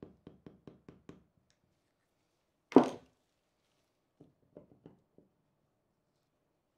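A hammer tapping a plastic wedge into the seam of a cast epoxy compression mould to split its two halves: a quick run of light taps fading out within the first second, then one loud knock nearly three seconds in. A few faint knocks follow as the halves are pulled apart.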